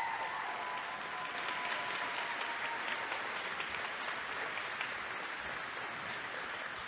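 A large crowd applauding steadily in a big, echoing hall. A thin steady high tone rings over the clapping for about the first three seconds, then fades.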